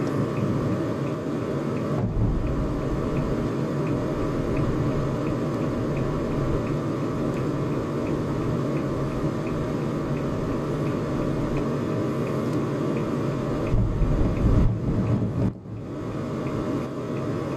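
Steady low rumble of a car cabin in traffic, the engine idling with the ventilation running, under a faint regular ticking. A louder low rumble swells at about 14 s and cuts off suddenly a second and a half later.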